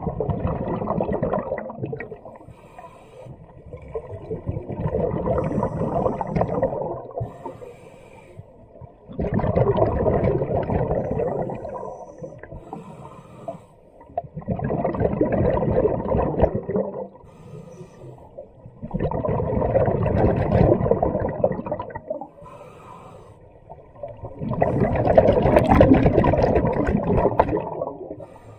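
A scuba diver's exhaled bubbles streaming from the regulator, heard underwater. They come in six long bubbling bursts, one about every five seconds, with the diver's breathing.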